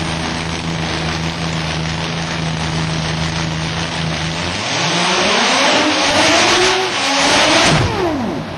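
RX-7 drag car engine running steadily, then revving up hard for about three seconds with the rear tyres spinning in a burnout. Near the end the revs drop away sharply.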